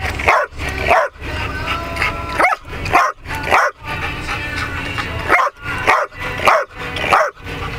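Briard barking repeatedly, about a dozen short barks in irregular bursts, over a steady low hum.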